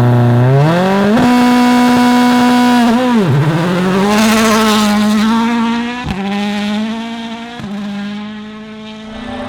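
Toyota Yaris WRC rally car's turbocharged four-cylinder engine at full throttle: the revs climb and hold high, dip sharply about a third of the way in, then climb again. Two quick gearshift cuts follow in the second half as the car pulls away and the sound fades.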